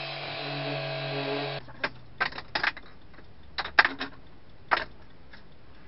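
An electric drill running steadily, then cutting off about a second and a half in. A string of sharp clicks and knocks follows as the work and tools are handled.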